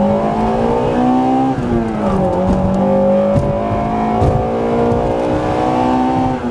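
A car engine revving: the pitch climbs, falls back about two seconds in, then climbs steadily again and drops near the end.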